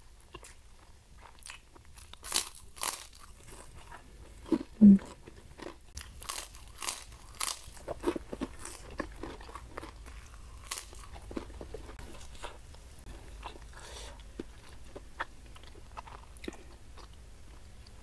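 Close-up crunching and chewing of a crispy white kerupuk cracker, eaten with rice: a handful of sharp crackly bites spread through, over softer wet chewing. About five seconds in comes a short low mouth sound, the loudest moment.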